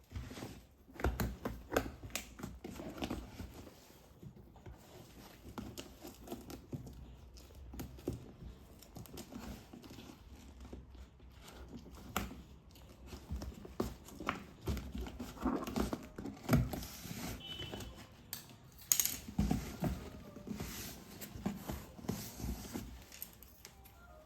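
Irregular rustling and crinkling of packaging, with scattered light clicks and knocks, as a laptop box and its contents are handled and unwrapped.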